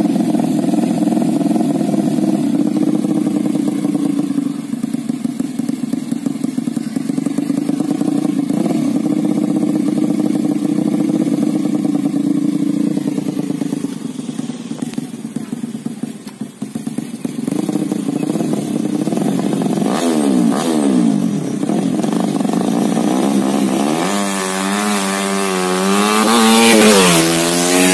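Tuned 130cc engine of a Yamaha Jupiter motorcycle running at a steady drone, dropping away briefly about halfway through. From about 20 s it is revved up and down repeatedly, loudest over the last few seconds as the bike comes close.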